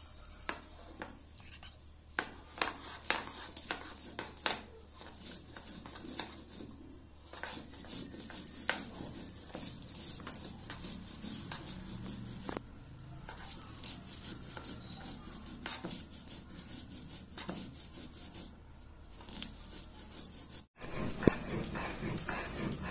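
Stone muller being rolled and knocked over a flat stone slab (shil-pata), grinding red chillies into a wet paste: rough scraping strokes with clicks and knocks. After a sudden break near the end, the grinding is louder.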